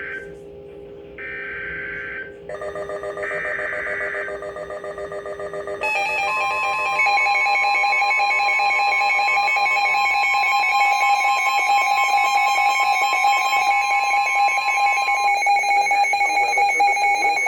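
Emergency Alert System signal on NOAA Weather Radio for a severe thunderstorm warning: the last of the SAME header data bursts, each about a second long with short gaps between, then a rapid beeping and, from about six seconds in, a loud, steady alert tone.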